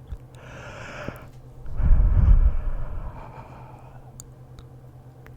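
A man yawning close to the microphone: a drawn-in breath, then about two seconds in a long, loud exhale that puffs on the microphone and tails off.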